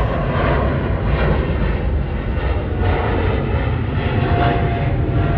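British Airways Boeing 777-300ER's twin GE90 turbofans at climb power as the jet departs: a loud, steady rumble.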